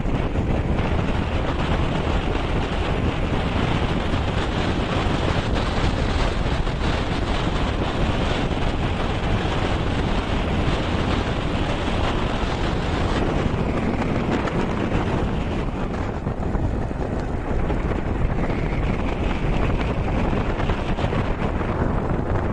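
Wind buffeting the microphone over the steady running noise of a vehicle travelling along a road.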